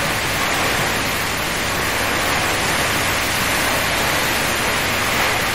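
Steady rain falling on the water and vegetation, an even hiss with no breaks.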